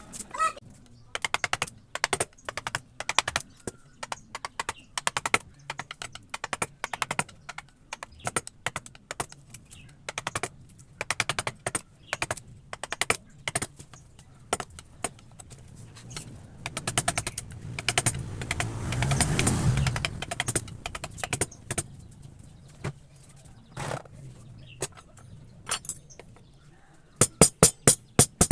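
Wood carving chisels struck with a mallet: irregular sharp taps, a few a second. A low rumbling swell of noise rises and fades about two-thirds of the way through.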